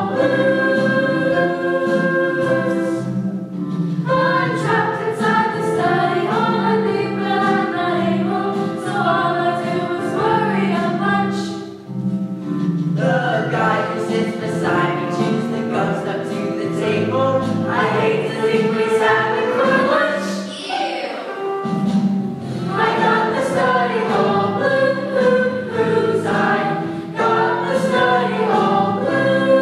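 A school choir of boys and girls singing a song together, with short breaks between phrases about 12 and 22 seconds in.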